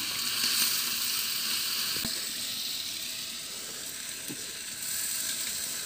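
Chicken masala sizzling steadily in a metal cooking pot as it is stirred with a long spoon, with two faint knocks about two and four seconds in.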